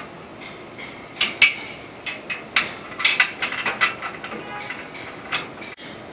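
Steel parts of a walk-behind paddy reaper clanking and clicking irregularly as they are fitted together by hand, with a sharp clank about a second and a half in and a quick run of knocks between about three and four seconds.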